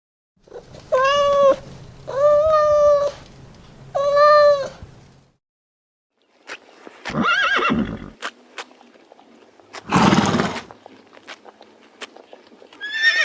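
Three short animal calls held at a steady pitch, then, after a cut, a horse whinnying, a loud snort about ten seconds in, and light hoof clicks, with the start of another whinny at the end.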